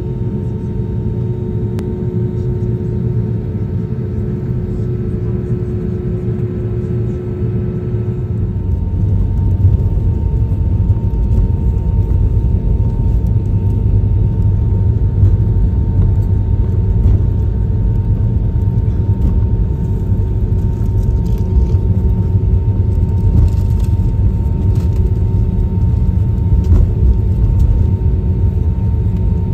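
Jet airliner engines heard inside the cabin from a seat over the wing while taxiing: a steady whine over a low rumble. About nine seconds in, the rumble gets louder and stays that way.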